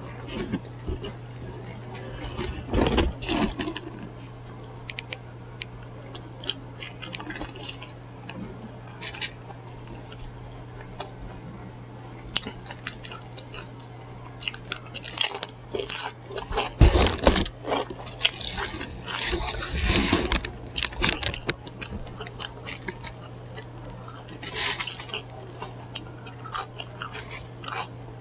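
A person eating crunchy food close to the microphone: bites, chewing and crunching come in irregular clusters, with some scraping and clatter of dishes. A steady low hum runs underneath.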